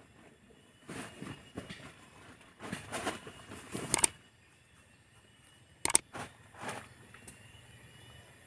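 Rustling and crackling of leaves and undergrowth as a person moves about and crawls into a dome tent, in irregular bursts with quiet gaps, with a couple of sharp clicks about four and six seconds in.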